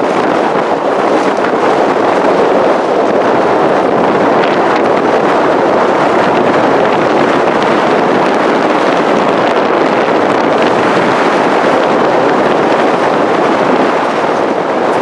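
Strong mountain wind buffeting the microphone: a loud, steady rush that holds without a break.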